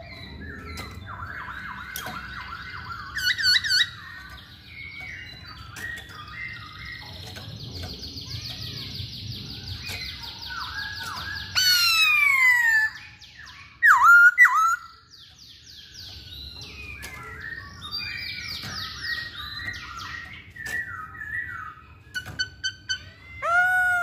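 Masked laughingthrush singing vigorously: a varied run of whistles, slurred notes and chattering phrases. The loudest notes are quick descending whistles about halfway through, and a rising-then-falling whistle comes near the end.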